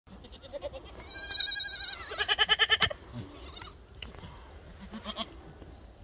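Korean black goats bleating: two loud, quavering bleats back to back, about a second in and just after two seconds, with fainter bleats before and after.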